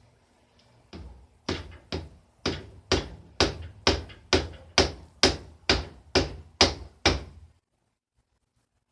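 A hammer tapping steadily on the Hensim 250 twin engine's case, about two blows a second, some fourteen in a row, then the sound cuts off.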